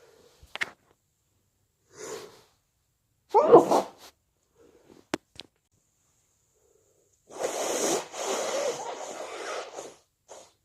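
A person sneezing wetly: a short intake of breath, then one loud sneeze about three and a half seconds in. Later comes a long, noisy, breathy spell of about two and a half seconds.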